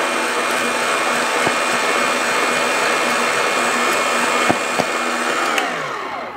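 Fellow Opus burr grinder's motor running with the chamber emptied, a steady whine, while the lid bellows is pumped to blow out the grounds retained in the grinder. A few light clicks come in the middle, and near the end the motor winds down with a falling pitch.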